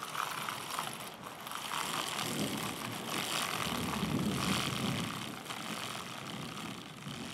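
Bicycle chain cranked backwards through a plastic chain-cleaning tool filled with cleaning solution: a steady churning of the chain links over the tool's brushes and through the liquid, louder from about two to five seconds in.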